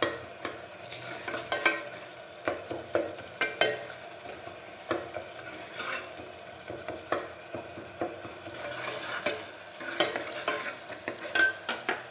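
Spoon stirring and scraping in an aluminium pot of sabzi frying in oil, with irregular sharp clinks over a steady sizzle.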